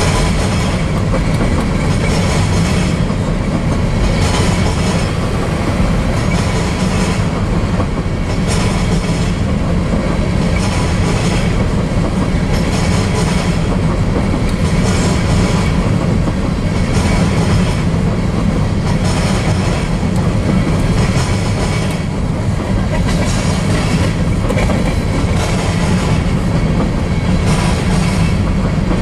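Covered grain hopper cars of a freight train rolling past at steady speed: a loud, steady rumble of steel wheels on rail with a regular clickety-clack of wheel sets crossing rail joints.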